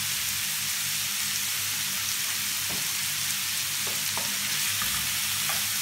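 Julienned carrots and green beans sizzling in a hot frying pan, a steady hiss with a few faint ticks, as they are briefly sautéed to stay crunchy. A steady low hum runs underneath.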